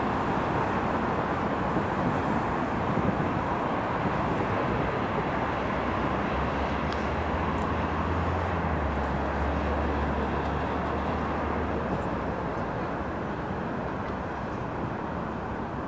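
Steady wash of distant city traffic noise. A low drone joins about six seconds in and stops around twelve seconds, as from a heavy vehicle or train passing.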